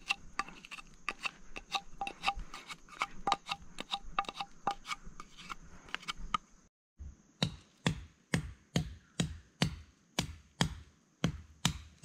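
Knife blade chopping into a green wooden slingshot fork, cutting the notch where the rubber band will be tied. A run of quick, light cuts, then after a brief break, steady heavier chops about two a second.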